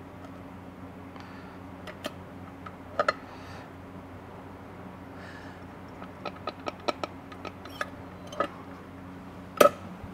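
Scattered clicks and taps from a hand-operated cone-type seal stretcher being set up and worked, with a pair of clicks about three seconds in, a run of them from about six to eight seconds, and the loudest knock near the end. A steady low hum runs underneath.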